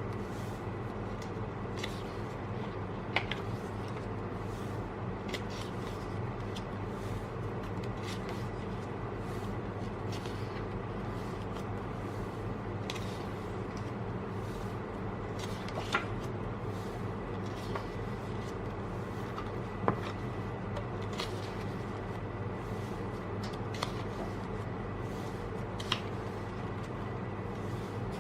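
Pages of an album photo book being handled and turned: scattered light paper rustles and a few sharp clicks, over a steady low background hum.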